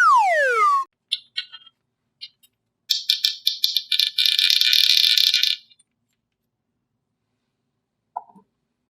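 Edited-in cartoon sound effects: a falling whistle at the start, a few short clicks, then a rapid clinking rattle lasting about two and a half seconds.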